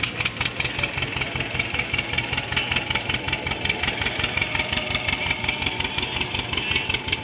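John Deere 730 tractor's two-cylinder engine running slowly with a steady, rhythmic putt as the tractor creeps forward.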